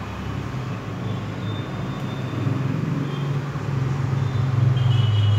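A steady low mechanical hum, like an engine running, that grows louder toward the end.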